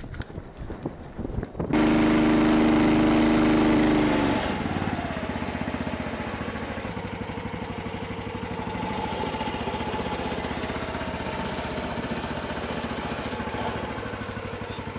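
Outboard motor on a small aluminium boat running, loud and strongly pitched for a couple of seconds from near two seconds in, then settling into a steadier, lower-level run as the boat moves across the water.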